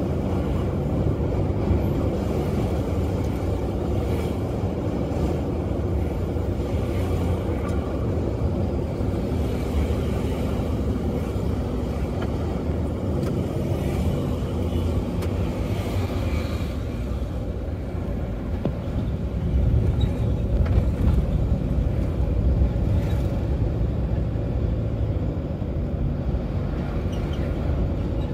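Steady low rumble of road traffic, a little louder about two-thirds of the way through.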